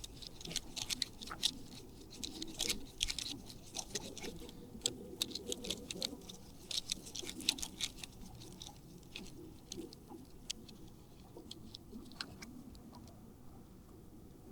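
Irregular small clicks, taps and scratches of hands handling the small plastic and metal parts of a pocket fishing kit, busiest in the first half and thinning out later.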